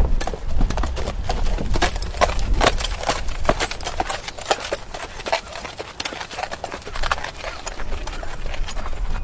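Horse walking, its hooves clip-clopping in an uneven run of sharp knocks, several a second, over a low rumble.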